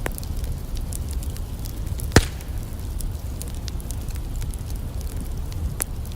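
Campfire crackling: scattered small snaps and one sharp, loud pop a little after two seconds in, with another clear pop near the end, over a steady low rumble.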